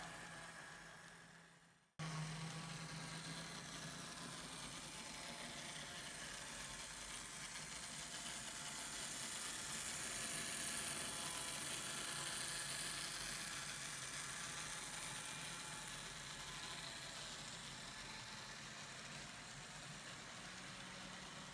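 Intermountain N scale model train running on DC power with no sound decoder: the faint whir of the diesel locomotives' motors and the wheels rolling on the track, swelling a little as the locomotives pass near the middle. The sound fades away at the start and returns abruptly about two seconds in.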